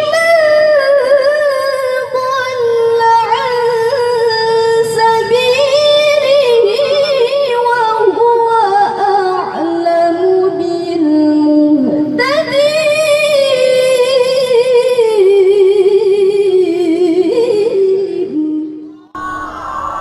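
A girl's voice reciting the Quran in melodic tilawah style, drawing out long ornamented phrases with trills and pitch glides. There is a short break for breath about twelve seconds in, and the phrase stops shortly before the end.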